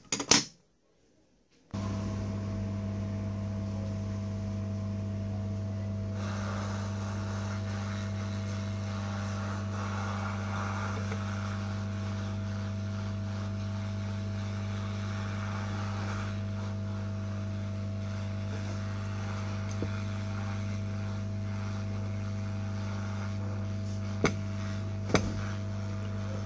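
Hot air rework station blowing on a circuit board: a steady electrical hum with a hiss of air that starts suddenly about two seconds in and gets louder about six seconds in. A sharp click comes at the very start and two short clicks come near the end.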